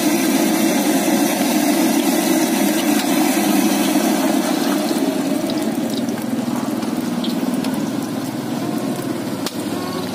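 Martabak telur frying in oil on a wide flat iron pan: a steady sizzle over a low rumble, with one sharp knock near the end.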